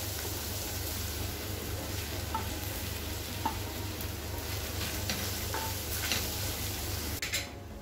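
Ground soya chunks sizzling in hot oil with chopped onions in a steel pan while a wooden spatula stirs and scrapes through them. There are a few light clinks against the pan.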